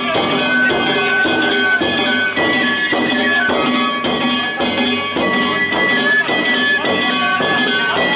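Danjiri-bayashi festival music: a shinobue bamboo flute plays a high melody of held notes over steady, regular strikes of the float's drum and clanging small hand gongs (kane).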